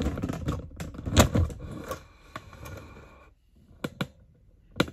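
Small metal hardware clicking and rattling as hands fit a bolt, washers and bushings on a motorcycle's front brake caliper mount. A busy run of clicks for about three seconds, then a pause and a few sharp clicks near the end.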